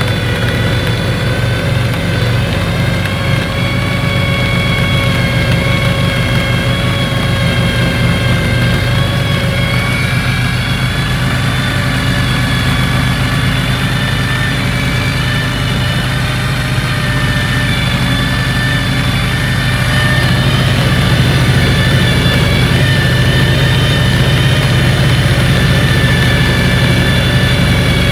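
Engine of a tracked 2005 Argo 6x6 running steadily while the machine drives over snow, heard from on board, with a steady high whine over the engine note. It gets a little louder about twenty seconds in.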